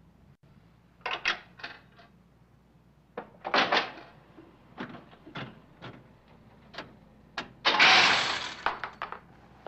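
Mechanical one-armed-bandit slot machines being played: a string of sharp metallic clicks and clunks, then a longer, louder rattling rush about eight seconds in.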